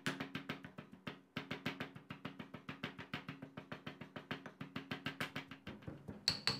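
Stone pestle pounding dried shrimp in a granite mortar: steady, even knocks about five a second, with a brief pause about a second in. The last few strikes near the end are louder and ring.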